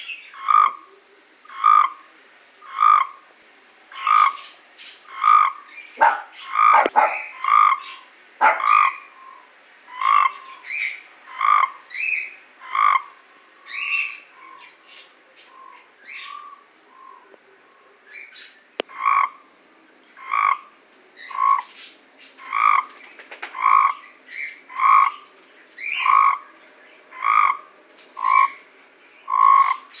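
Toad calling in short croaks, repeated steadily about one every two-thirds of a second, with a softer, broken-up stretch midway.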